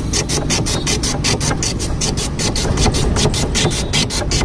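A block of ice shaved by hand across the blade of a wooden ice-shaving stand: quick, even rasping strokes, several a second, over a steady low hum.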